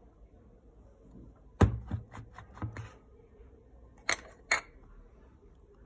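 Clicks and knocks from a vintage metal camera lens being turned over in the hands: a sharp knock about a second and a half in, a quick run of about five clicks, then two sharp clicks near the end.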